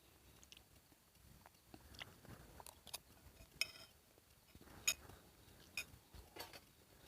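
Faint sounds of someone eating instant noodles: chewing, with about eight scattered clicks and clinks of a utensil against the bowl or pot.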